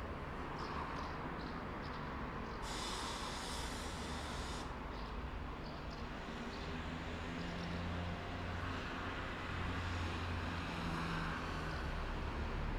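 Roadside town ambience: a steady traffic rumble, with a vehicle engine's low hum growing louder in the second half. About three seconds in comes a hiss lasting about two seconds, and there are faint short high chirps.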